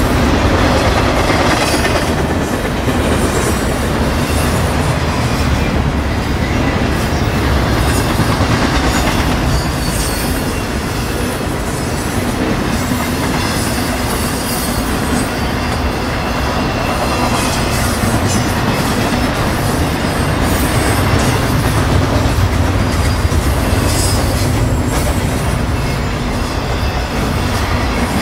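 Intermodal freight train's double-stack container cars and trailer-carrying flatcars rolling past: a steady rumble of steel wheels on rail with scattered clicking as the wheels cross rail joints.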